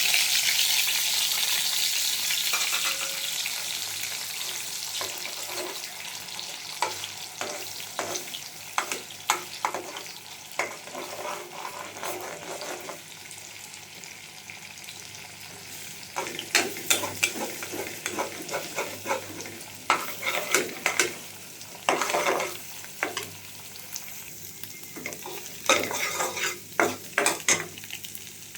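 Egg sizzling in hot oil with frying onion, garlic and green chilli: loud at first, then dying down over several seconds. After that, the frying goes on softly under bursts of clicks and scrapes as the egg is stirred against the pan.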